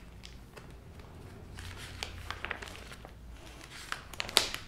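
Pages of a thick binder of archive sheets being handled and turned: faint paper rustling and small clicks, with a louder, sharper rustle near the end, over a low steady hum.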